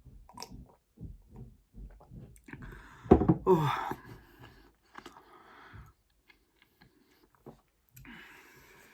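Close-miked chewing of food with wet mouth noises, in short regular bursts about two to three a second, and a loud spoken 'Oh' with falling pitch about three seconds in.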